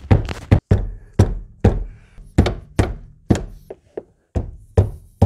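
Repeated sharp knocks, about two a second, as a screwdriver set in the fuel pump's locking ring is struck to drive the ring round and free the pump assembly.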